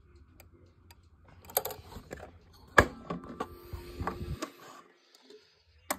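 A Howard Miller regulator clock's German-made movement ticking softly and regularly. About a second and a half in, it is covered by a few seconds of knocking, rubbing and clicking handling noise, with one sharp loud click near the middle and another near the end.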